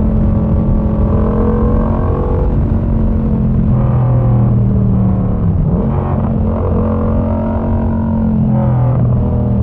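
Yamaha MT-07's 689 cc parallel-twin engine running through a Mivv exhaust with the dB killer removed, heard from onboard while riding. The engine note holds steady, dips briefly about halfway through and again near the end, then picks up again.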